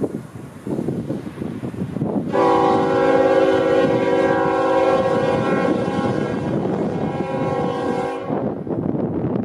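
Union Pacific SD70M's Nathan K5HLL five-chime air horn sounding one long blast of about six seconds, starting a couple of seconds in. Under it runs the steady rumble of the train rolling on the rails.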